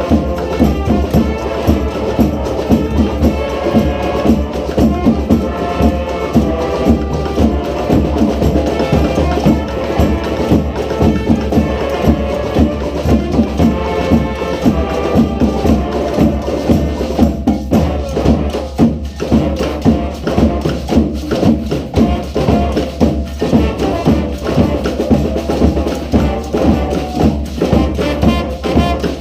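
Street brass band playing a cumbia: horns carrying the melody over percussion keeping a steady beat.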